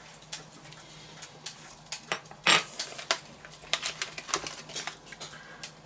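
Kitchen handling sounds: a metal fork clicking as it sets a pineapple slice on a burger and is put down, then handling of a plastic tray of cheese slices. A string of light clicks and taps, the loudest about two and a half seconds in.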